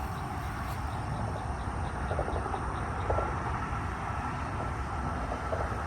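Steady low rumble of passing road traffic, with no distinct events standing out.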